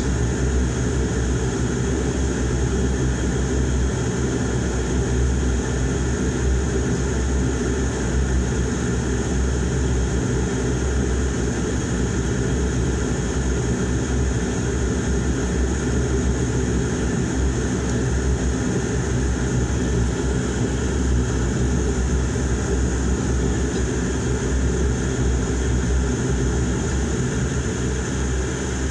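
Dash 8-Q400's Pratt & Whitney Canada PW150A turboprop engine and propeller running steadily, heard from inside the cabin right beside the engine: a low, even drone with a steady high whine on top.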